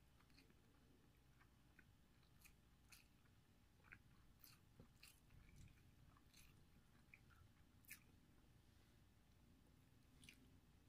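Faint eating sounds: chewing and scattered small clicks of a spoon and fingers at a shared plate of rice and chicken, over near silence.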